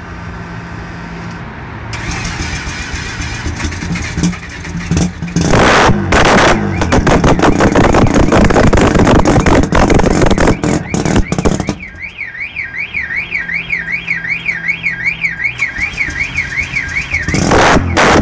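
Mazda RX-7's turbocharged 13B twin-rotor engine starting up: it builds from a quieter opening to loud, choppy running, with sharp revs about a third of the way in and again near the end. For about five seconds in the second half, a car alarm warbles up and down about three times a second over the idling engine.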